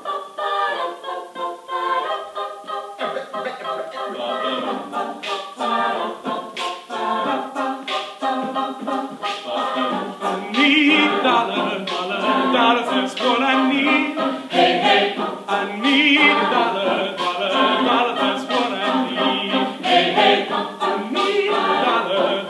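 Mixed-voice a cappella group singing the harmonised backing of a pop song, over a steady beat of sharp clicks from vocal percussion. The singing grows louder and fuller about ten seconds in.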